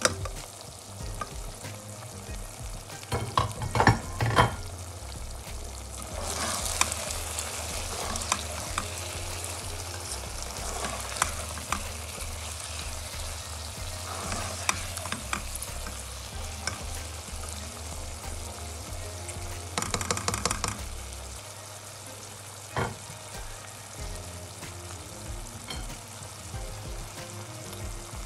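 Okra, onion and tomato frying in a non-stick pan, sizzling steadily while a spatula stirs and scrapes through them. Clattering knocks of the spatula against the pan, loudest about three to four seconds in and again around twenty seconds, with one sharp knock a little later.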